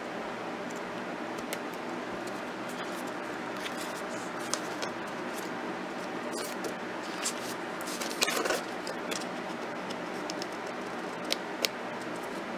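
Scissors cutting paper: scattered small snips and clicks, with a louder patch about eight seconds in and two sharp snips near the end, over a steady background hum.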